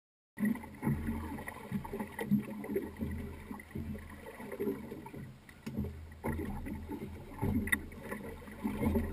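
Ambience aboard a fishing boat at sea after a moment of silence: water slapping the hull over a low rumble, with a couple of sharp clicks.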